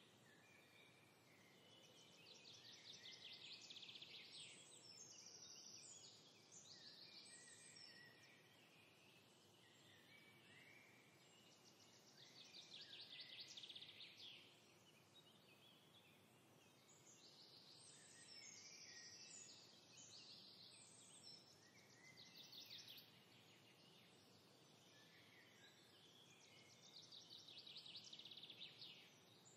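Faint birdsong: repeated rapid trilled phrases and high chirping notes, over a low steady background hiss.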